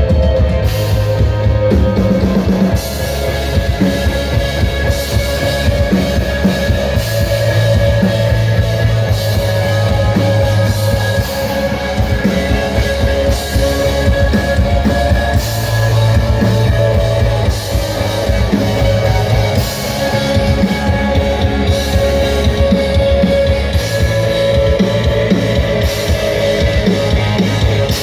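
Rock music with a drum kit, bass and guitar, played at a steady loud level.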